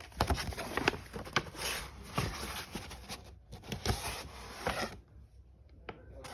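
Packaging being handled and opened: irregular rustling and scraping with sharp clicks and taps, dying down near the end.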